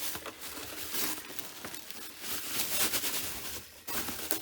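A wrapping cover rustling and crinkling in uneven swells, with a few small clicks, as it is handled and pulled away from a computer.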